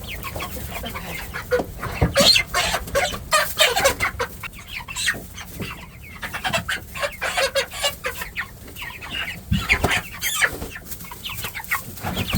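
A flock of Cornish Cross meat chickens calling, mixed with many short sharp knocks. It is busiest about two to five seconds in and again around ten seconds.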